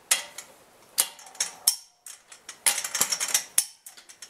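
Click-type torque wrench on a car's lug nuts: a few sharp clicks, then a quick run of ratcheting clicks about three seconds in. The wrench clicking is its break-over at 90 foot-pounds, the sign that the nut is tight enough.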